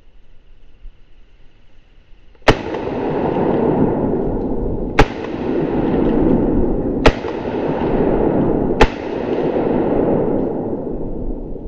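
Four shotgun shots, about two seconds apart, each followed by a long rumbling echo.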